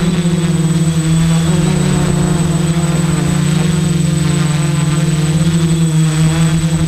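XAircraft Super X quadcopter's electric motors and propellers buzzing steadily in flight, heard from the camera on board, wavering slightly in pitch, with a thin steady high whine above.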